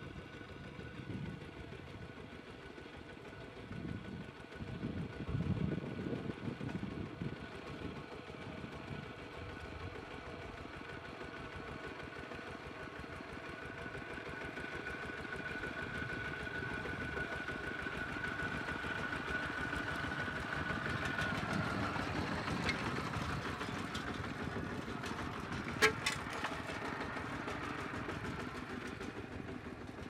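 Two-wheel walking tractor with steel cage wheels running steadily as it ploughs, growing louder as it comes closer. A sharp click near the end.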